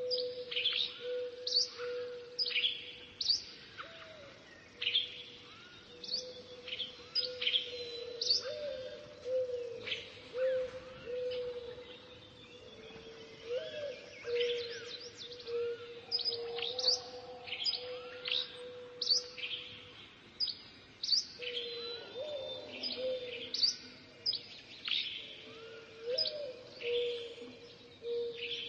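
Birds chirping: many short, quick rising calls, several a second, over a steady low hum.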